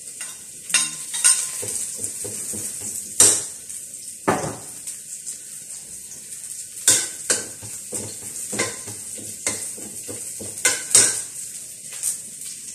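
Shallots, garlic and dried anchovies frying in oil in a wok, a steady sizzle, with a metal spatula scraping and clanking against the wok at irregular moments as they are stirred.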